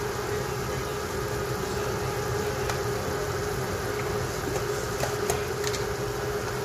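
Steady kitchen hum with a constant hiss, as a pot of chicken strips cooks on a gas stove. A few faint light clicks come in the second half.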